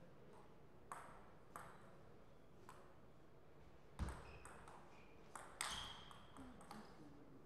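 Table tennis ball clicks: three single bounces well spaced over the first few seconds, then a heavier thud about four seconds in, followed by a quick run of sharp hits of ball on paddle and table during a short rally.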